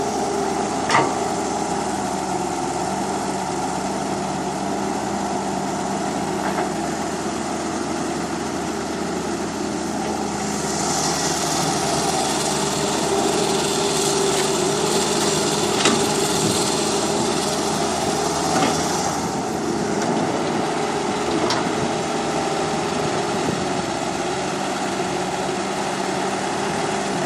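Small electric motors of radio-controlled toy construction vehicles running steadily, with a hissing rush in the middle lasting about nine seconds and a few sharp clicks.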